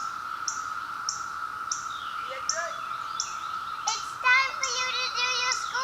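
Periodical cicada chorus droning as one steady, unbroken hum, with short high chirps repeating about every half second. About four seconds in, a child's high voice rises over it.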